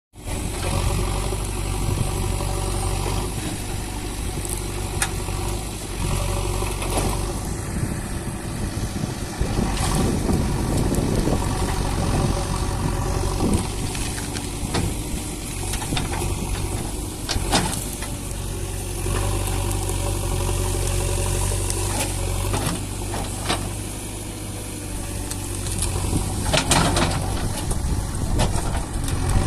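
Excavator's diesel engine running steadily, with a few sharp knocks or cracks now and then.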